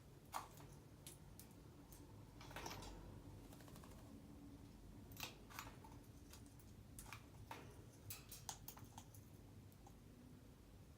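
Faint, irregular clicks and taps, with a short scraping rustle about two and a half seconds in.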